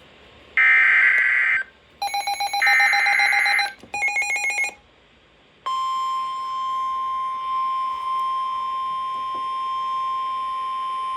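NOAA Weather Radio emergency alert: three short bursts of shrill digital header data (the SAME code), then the steady 1050 Hz warning alarm tone sounding from a little past halfway, the signal that a warning broadcast follows.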